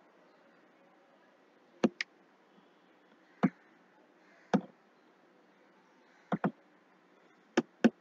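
Computer mouse buttons clicking, about eight sharp clicks at uneven intervals, several of them in quick pairs, over a faint steady hiss.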